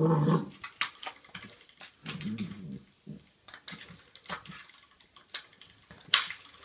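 Black Labrador puppy giving short low growls while it bites and paws at a spring door stop. Several sharp clicks and knocks come from the stop being hit, the loudest about six seconds in.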